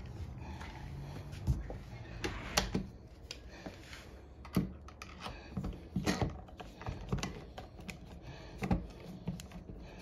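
Irregular light clicks and taps of a hand screwdriver and metal deadbolt hardware as the lock's mounting screws are tightened by hand.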